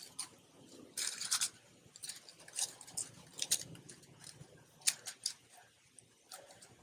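Loose birdseed rustling and skittering as a cardboard toilet paper roll coated in sunflower butter is rolled through it on a plate. The sound comes in short, irregular scratchy bursts.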